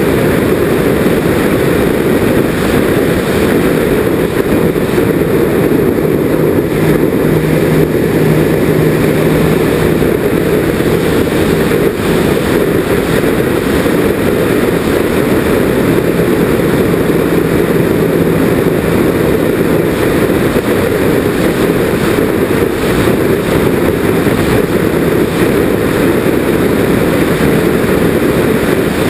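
Twin propeller motors of a Nitroplanes Grand Cruiser RC plane in flight, heard from a camera on the airframe: a loud, steady drone mixed with airflow rush.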